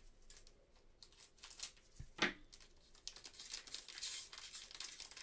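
Plastic wrapper of a trading-card pack being torn open and crinkled by gloved hands, loudest about two seconds in.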